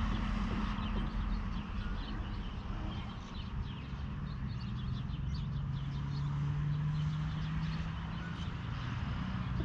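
Many birds chirping over the low steady hum of a truck engine running, its pitch stepping up slightly about halfway through.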